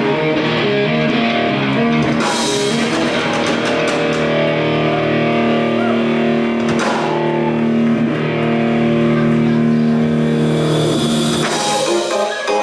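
Live rock band playing an instrumental passage: electric guitar chords over a drum kit, with a few cymbal crashes.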